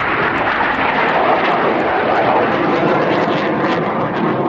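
Jet engine noise of a Canadair NF-5 fighter's twin turbojets, a loud, steady rush as the jet flies past and climbs away.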